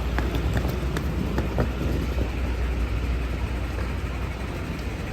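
City street traffic in the rain: a steady low rumble of passing vehicles with an even hiss of wet road noise, and a few light ticks in the first two seconds.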